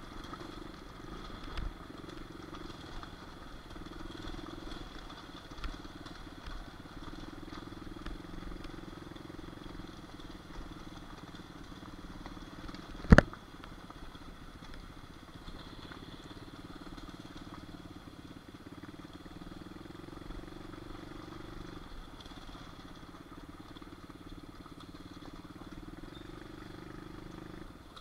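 Small single-cylinder pit bike engine running steadily on a trail ride, with one loud, sharp knock about halfway through.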